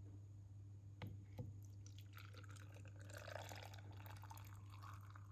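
Vinegar-and-salt brine being poured into a glass jar packed with olives, a faint trickling pour whose pitch rises as the jar fills. It is preceded by two light clinks about a second in.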